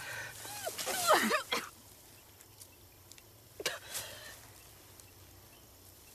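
A woman's pained, breathy groan with wavering pitch, followed a couple of seconds later by a short gasp.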